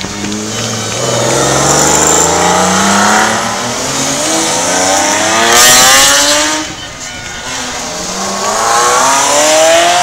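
Sports cars accelerating one after another through a corner, first a Lamborghini Countach's V12 and then Ferraris, each engine note rising in pitch as the car pulls away. The loudest moment, a brief rushing burst, comes about six seconds in as the white Ferrari goes by.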